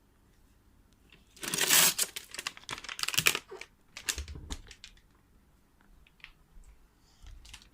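Crinkling, rustling handling noise lasting about two seconds, followed by a few light clicks and knocks.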